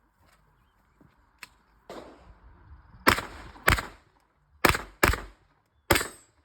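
Gunshots on a shooting range: two fainter shots, then five loud, sharp shots at uneven gaps of about half a second to a second, each with a brief ring-out.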